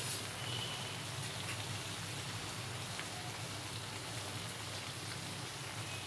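Country-chicken and chana dal curry sizzling gently in its pan: a steady soft hiss with a few faint pops.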